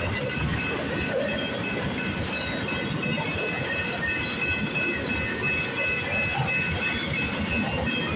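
Freight train of empty flatcars rolling past, a steady rumble and rattle of wheels on rail with faint steady high-pitched ringing from the wheels.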